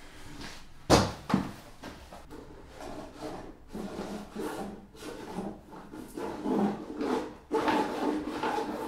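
Twin and earth electrical cable being pushed through a hole under wooden floorboards, rubbing and dragging against the wood, with a sharp knock about a second in and a smaller one just after.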